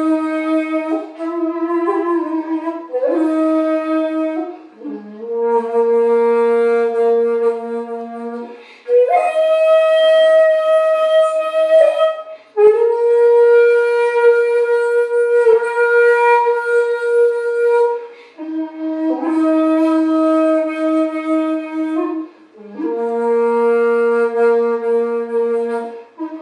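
Solo shakuhachi bamboo flute playing a Nesasa-ha Kinpū-ryū honkyoku piece: long held notes, several sliding up into their pitch, with short pauses for breath between phrases.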